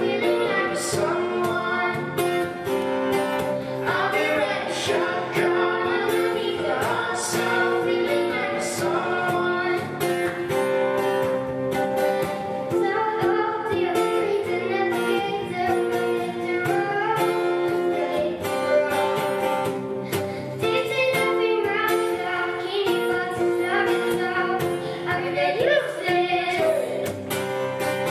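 A young girl singing a pop song live, accompanied by a strummed acoustic guitar.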